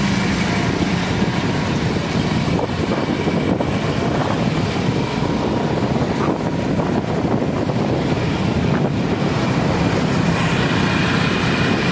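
Steady road noise from a moving vehicle, with wind rushing over the microphone.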